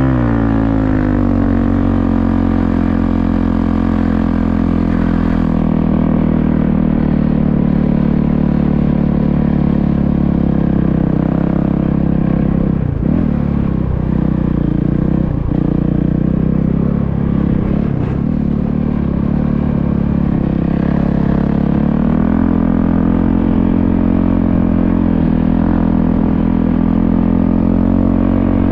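Motorcycle engine running under way. Its revs ease off just after the start, then it runs at a steady pitch, with a few brief dips in the middle.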